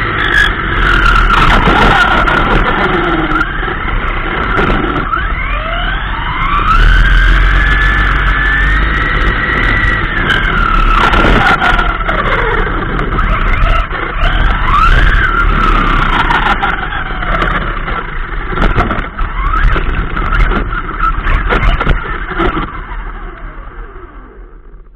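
The 3656-size 4000kv brushless motor of a WLtoys K939 RC car on an 11.1 V lipo, whining and rising and falling in pitch with the throttle, over rough tyre and road noise and the odd knock from bumps. It is heard from on board the car and fades away over the last few seconds as the car slows.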